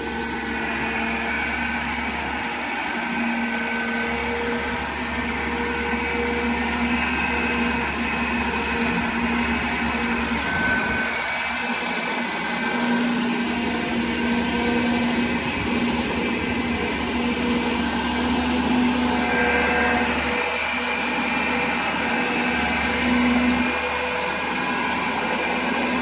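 Old farm blower's engine running steadily, driving its 4.5-foot fan, with a steady hum and a rushing hiss of moving air.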